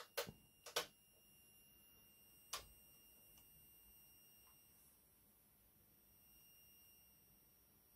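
Near silence over a faint steady high-pitched whine. There are a few short clicks from the control knobs of an SM111 oscilloscope being turned, in the first second and once more about two and a half seconds in.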